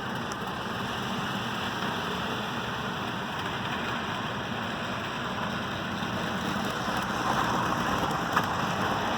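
HO scale model train running along the layout track: a steady whirring and rolling noise from the motor and wheels on the rails, a little louder near the end, with a single sharp click about eight seconds in.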